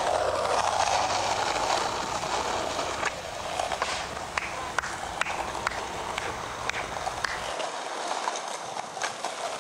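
Skateboard wheels rolling over pavement with sharp clacks every half second or so, heard as playback through a camcorder's small speaker. The sound thins out near the end.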